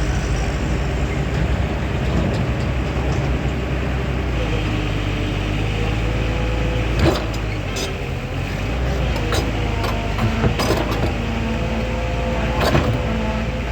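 Excavator's diesel engine running steadily, with a few sharp knocks in the second half.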